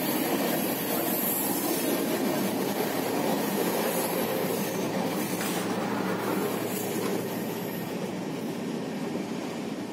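Gatimaan Express LHB passenger coach running along the track, heard from on board: a steady rumble and rush of wheels on rail, easing slightly quieter in the second half.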